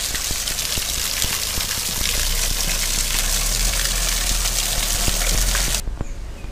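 Waterfall: a steady rush of falling water with a low rumble beneath it, growing louder about two seconds in and cutting off suddenly near the end.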